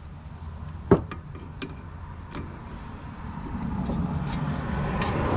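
Hand tools on a car's front brake caliper: a sharp metal clink about a second in, then a few lighter taps as pliers are set against the caliper piston. A steady rushing noise swells from about three and a half seconds in.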